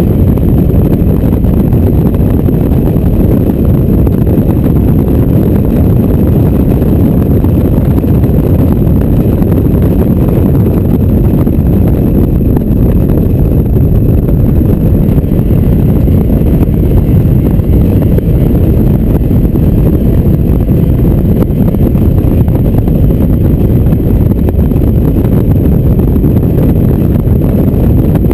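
Mazda MX-5 roadster driven fast with the top down: a loud, steady rush of wind buffeting the microphone over the car's engine and tyre noise.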